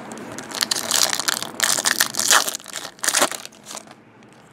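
Foil wrapper of a Fleer Retro basketball card pack being torn open and crumpled by hand: loud crinkling for about three seconds that stops near the end.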